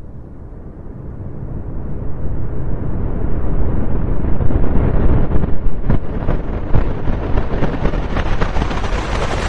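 Science-fiction sound effect: a deep, noisy rumble that swells over the first few seconds, then stays loud with a crackling edge added from about six seconds in.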